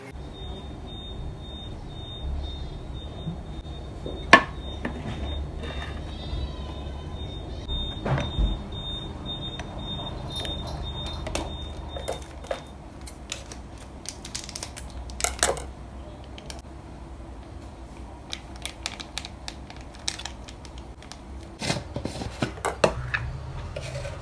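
Wooden spoon stirring an oat batter in a glass bowl, with scattered sharp knocks and clicks of the spoon and bowl against glass and the counter, the loudest about four seconds in. A steady high thin tone sounds through the first half and stops about halfway, over a low steady hum.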